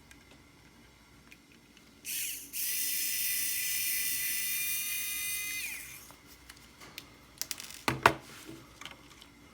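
Small electric precision screwdriver running: a short blip, then about three seconds of steady high whine that winds down in pitch as it stops. A few sharp clicks near the end.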